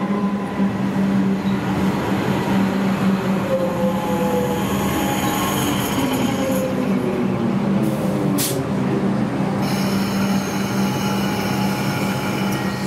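Electric suburban train moving past along the platform, close by, with a steady hum. Several motor tones slide down in pitch over a few seconds, and a brief high squeal comes about eight seconds in.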